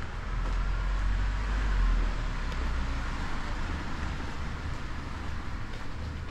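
A motor vehicle passing on a street, its noise swelling to loudest about two seconds in and then easing to a steady traffic hum.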